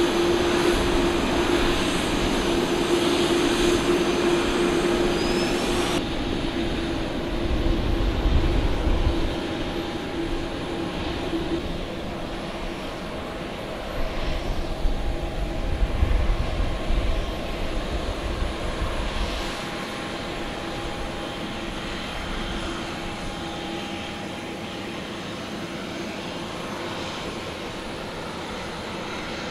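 Boeing 787-9 jet engines running at taxi power as the airliner rolls past, a steady hum with low rumbling surges in the middle, growing gradually fainter over the last third as it moves away.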